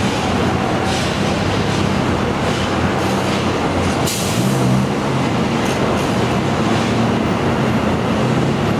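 Airliner jet engines running at idle on the apron: a loud, steady rumble and hum with a brief rush of hiss about four seconds in.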